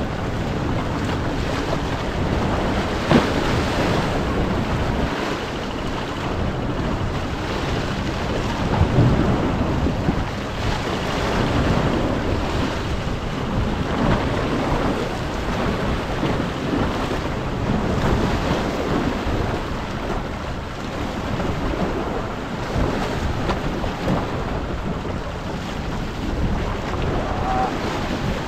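Sea waves washing and splashing against shoreline rocks, swelling and ebbing, with a few louder splashes. Strong wind buffets the microphone.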